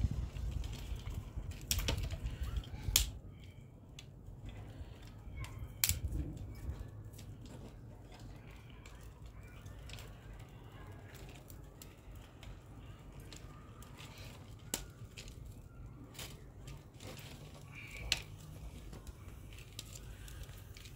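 Dry twigs being snapped and handled as kindling for a wood fire: a sharp crack every few seconds, the loudest about two and three seconds in, over a low steady background.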